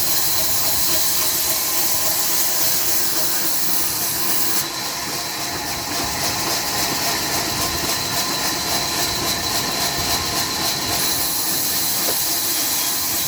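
Sawmill machinery running: a loud, steady hiss with faint whining tones beneath it. About five seconds in, the hiss takes on a rapid flutter for several seconds.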